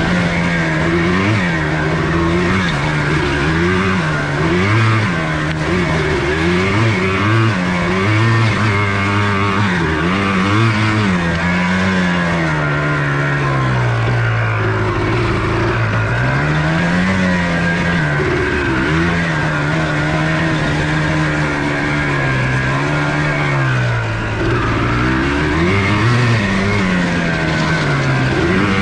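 Single-cylinder two-stroke engine of a 1994 Yamaha Blaster 200 quad being ridden, its pitch rising and falling every second or two as the throttle is worked, with one longer slow drop and climb in the middle.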